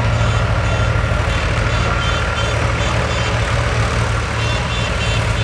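Heavy diesel engine running steadily at an even, low pitch. A faint thin whine sits above it through the first half.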